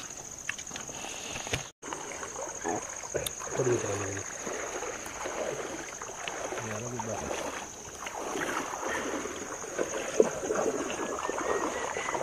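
A steady, high-pitched trill of night insects runs throughout, over soft rustling and scattered small clicks, with a few brief low murmurs of men's voices.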